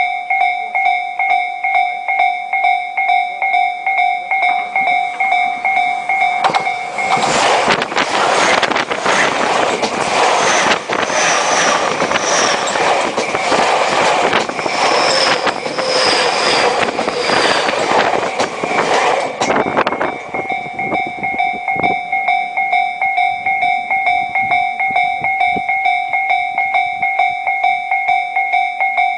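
A train runs directly over a microphone lying between the rails at a level crossing: a loud rush with rapid clattering wheel clicks lasting about thirteen seconds. Before and after it the crossing's warning bell rings in an even, repeating pattern of two steady tones.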